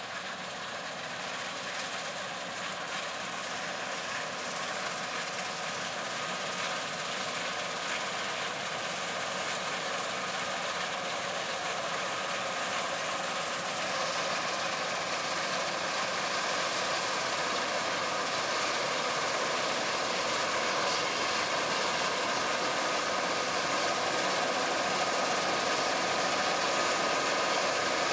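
John Deere S690 combine harvester running while cutting wheat: a steady mechanical hum with a few high whining tones, growing gradually louder as it comes closer.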